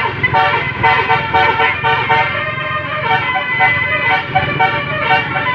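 Bus 'telolet' horn: a bus's multi-tone musical air horn playing a quick melody of short notes that repeats, over a low rumble.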